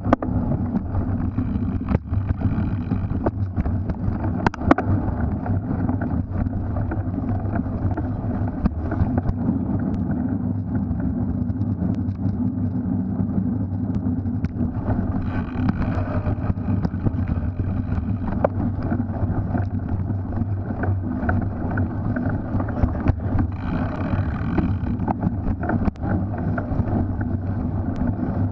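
Wind rushing over the microphone of a camera riding along on a cyclocross bike, a steady low rumble, with frequent small clicks and knocks from the bike rattling over rough ground.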